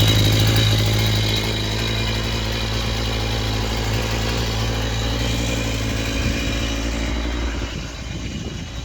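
Two-stroke chainsaw engine idling steadily, dropping in level near the end.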